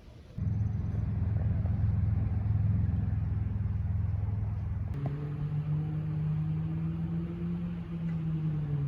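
Low vehicle rumble that begins suddenly. About halfway through it changes to a steadier engine drone whose pitch wavers slowly.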